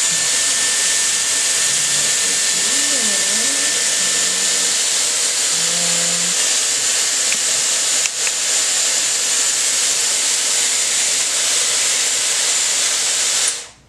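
Dyson Airwrap running with its long curling barrel wrapping a section of hair: a steady, loud rush of air with a faint high whine, cutting off sharply just before the end as it is switched off.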